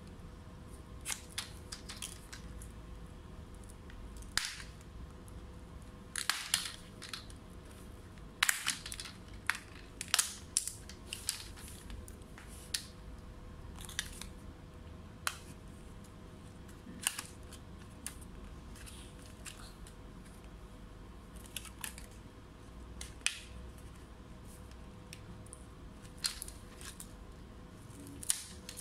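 Asus FX504GD laptop's plastic display bezel being pried off with a playing card: its clips crack and snap loose in scattered sharp clicks, several loud ones bunched together between about a third and halfway through.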